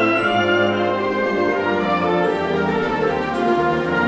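Concert wind band of woodwinds and brass playing a full, steady passage of held chords that shift every half second or so.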